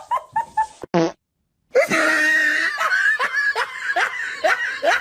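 Laughter, a run of short rising "ha" sounds at about two to three a second, after a brief cut to silence about a second in.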